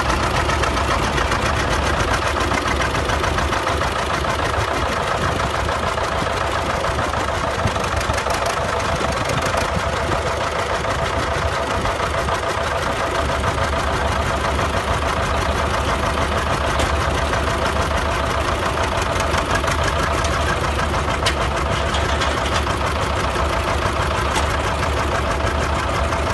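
John Deere two-cylinder diesel tractor engine running steadily at low speed, its exhaust beats even and rapid.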